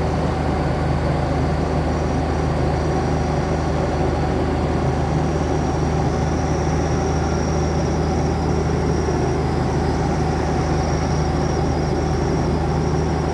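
Old diesel tractor engine idling steadily, freshly started cold after waiting on its glow plugs.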